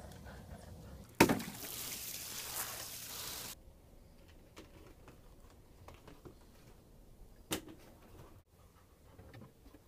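Dog chewing and pawing a plastic frisbee on wooden deck boards: scattered clicks, taps and scrapes of plastic on wood. A sharp knock about a second in is followed by about two seconds of loud hiss that cuts off abruptly, and another sharp knock comes near the three-quarter mark.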